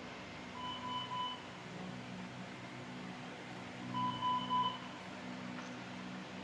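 Electronic alarm beeping from NICU medical equipment: two bursts of three quick high beeps about three seconds apart, over a steady low hum of machinery.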